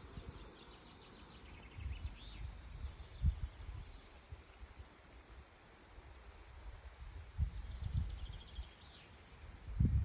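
Wind buffeting the microphone in uneven low gusts, with small birds singing faintly in the trees: a few trills of quick repeated notes.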